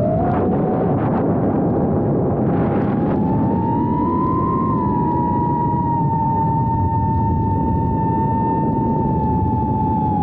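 Brushless motors and propellers of an Emax BabyHawk II FPV quadcopter whining close to the onboard camera, over a steady hiss of air. The pitch jumps up sharply at the very start as the throttle is pushed, rises a little more about four seconds in, then eases slightly lower and holds.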